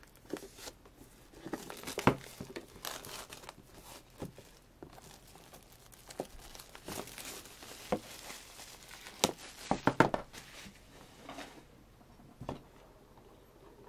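Plastic shrink wrap being torn and peeled off a sealed album box, crinkling with irregular sharp crackles. It is busiest about two-thirds of the way through, then settles down near the end.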